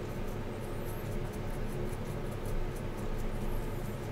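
Steady low hum of background room noise, with two faint, brief high-pitched squeaks, one about a second in and one near the end.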